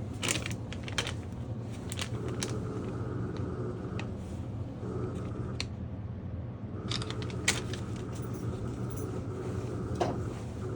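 Small hard parts clicking and clinking as they are handled, scattered irregularly over a steady low hum.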